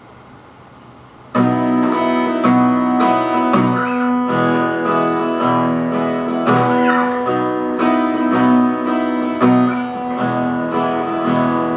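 Guitar strumming chords as an instrumental introduction, starting suddenly about a second and a half in after faint hiss.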